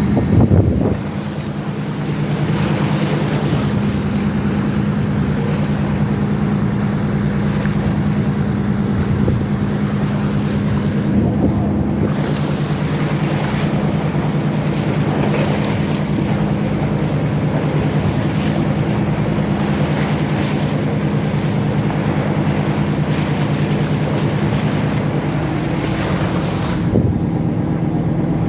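Steady low engine drone under wind and surf noise, with wind buffeting the microphone; the sound shifts about 27 seconds in.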